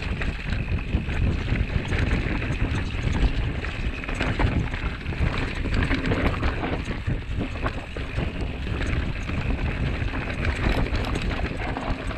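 Mountain bike rolling fast down a dirt trail: tyres running over the dirt with frequent small clicks and knocks from the bike rattling, over a steady low rumble of wind buffeting the microphone.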